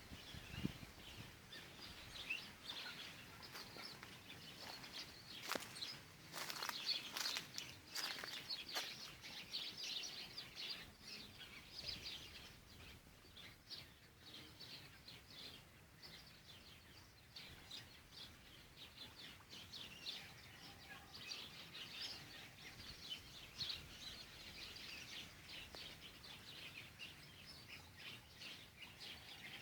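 Several birds chirping and calling, a dense run of short high chirps, with a few sharp clicks between about five and nine seconds in.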